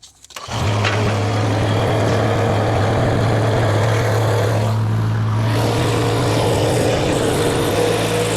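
Derette V1000 mini skid steer's engine starting about half a second in and then running steadily. Near the end its note shifts and a steady higher tone joins it.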